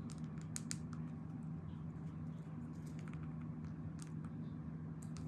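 Scattered light clicks and taps of small plastic parts being handled: a plastic action figure and its little roller skates, the skates being fitted onto its feet. A steady low hum lies underneath.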